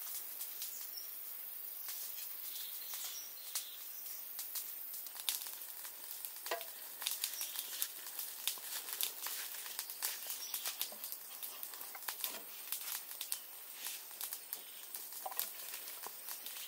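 Scattered light clicks, crackles and rustles from hands handling marinated beef ribs, leaves and a green bamboo tube, growing busier about five seconds in, over a steady faint high hiss.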